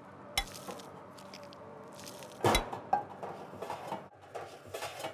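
Metal spatula knocking and scraping against a kadai as rice and meat curry are tossed together: a sharp knock early on, the loudest knock about two and a half seconds in, then several lighter taps.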